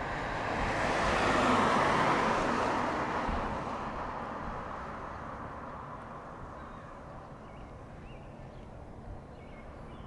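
A vehicle driving past on the street: its tyre and engine noise swells to a peak about two seconds in, then fades away slowly into faint traffic hum.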